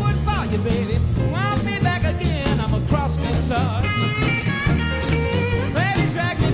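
Blues band playing, led by electric guitar with notes bent up and down over bass and drums.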